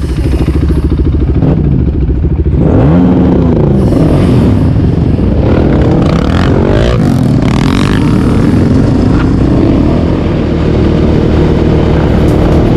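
Quad bike (ATV) engine running loudly, revved up and back down several times.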